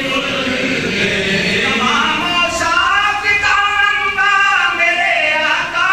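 A group of men chanting devotional verses together; from about halfway a clearer, higher voice comes forward with long gliding notes.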